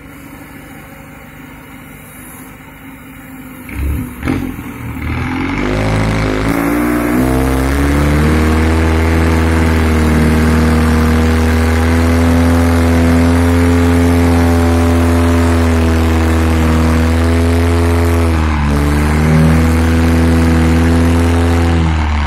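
Heavy diesel engine revved up and held at high revs under load while a stuck, fully loaded lorry is pushed free. After a quieter few seconds it climbs about five seconds in, runs loud and steady, dips briefly near the end, then picks up again.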